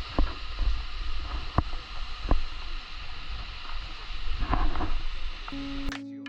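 Steady rushing of water and wind outdoors, with low rumbling wind buffets on the microphone and a few sharp knocks. A plucked guitar tune comes in near the end.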